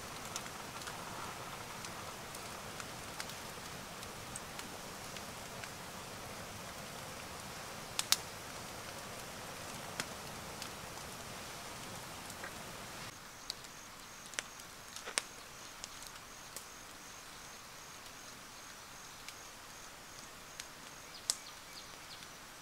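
Outdoor forest ambience: a steady background hiss with scattered sharp taps and clicks. About halfway through, the background shifts and a faint, high, evenly pulsing chirp, about four pulses a second, runs on to the end.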